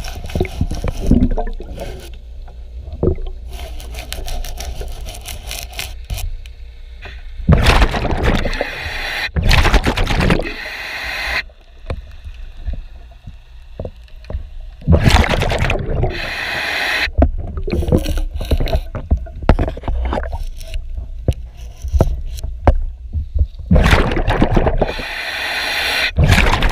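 Underwater scraping and scrubbing on a boat hull over a steady low rumble. Loud bubbling rushes break in every several seconds, typical of a diver's exhaled bubbles from a regulator.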